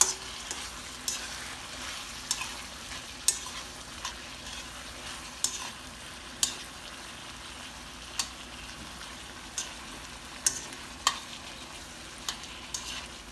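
Sliced sausage with bell pepper and onion sizzling in a non-stick skillet as it is stirred, a steady frying hiss with sharp taps and scrapes of the utensil on the pan every second or so. The sausage is being fried to crisp it.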